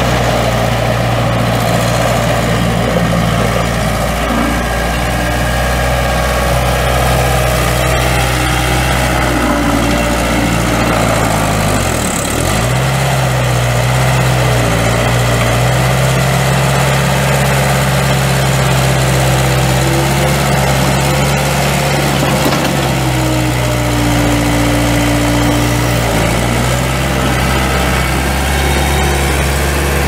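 1994 Case 1845C skid steer's four-cylinder diesel engine running steadily. About twelve seconds in its pitch dips briefly and then holds higher, and it drops back down a few seconds before the end.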